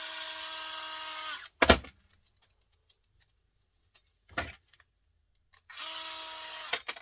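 Power drill-driver running in two steady bursts: one lasting about a second and a half, a shorter one near the end. Its whine drops slightly in pitch each time the trigger is released. Sharp knocks fall between the bursts.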